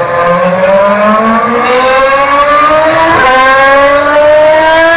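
A 2010 Formula 1 car's V8 engine running loud, its pitch climbing steadily and smoothly throughout.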